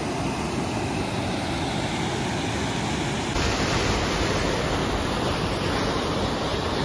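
River water rushing over rocks and a weir, a steady loud rush that grows a little louder a little past three seconds in.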